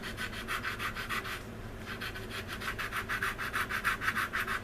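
Sanding stick rubbed back and forth over a glued seam on a plastic model kit's engine nacelle. It goes in quick, even strokes, about five a second, with a short break about a second and a half in. The sanding smooths away the seam line.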